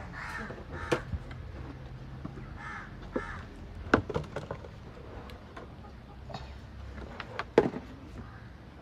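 Plastic basins and a dish knocking as they are handled and set down beside the cooking fire, with sharp knocks about four and seven and a half seconds in. A bird calls a few times in the background during the first three seconds.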